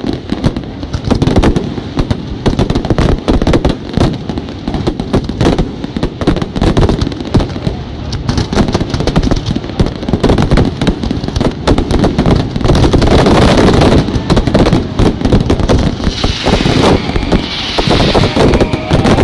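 Fireworks display in full barrage: sharp bangs from bursting shells, several a second and overlapping. A hissing crackle comes up near the end.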